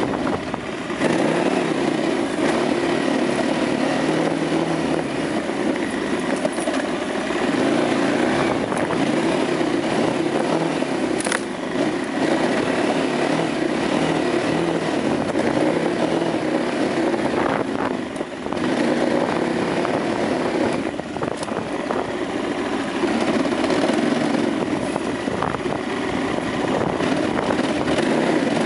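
A 950 Adventure motorcycle's engine running under way on a rough dirt trail, its note rising and falling with the throttle over a steady rush of wind and trail noise.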